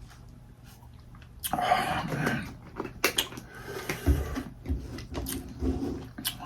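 Close-miked eating sounds from a seafood boil: chewing and mouth smacking with clicks and crackles, and a louder noisy stretch about a second and a half in.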